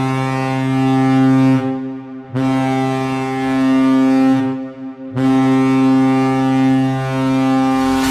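HC Sibir Novosibirsk's arena goal horn sounding three long, low blasts. The first two last about two seconds each with short gaps between them, and the third runs about three seconds.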